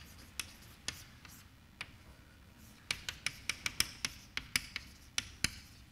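Chalk writing on a blackboard: sharp taps and scratches as letters are written, a few spaced strokes at first, then a quick run of taps about halfway through.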